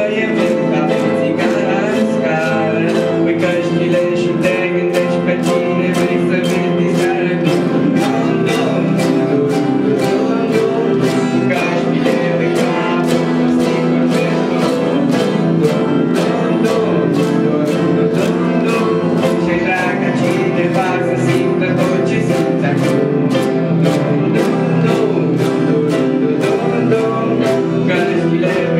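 A young ensemble singing together over several strummed acoustic guitars, with the strumming keeping a steady, even rhythm.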